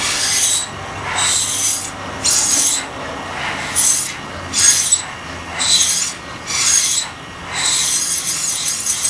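Breaths blown through plastic drinking straws cut to a point at the tip and taped together, giving about eight short, breathy, hissing blows, each under a second long.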